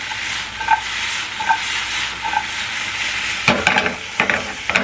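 Green beans sizzling in oil in a nonstick frying pan on a gas burner, a steady frying hiss. Near the end come a quick cluster of sharp clicks and knocks.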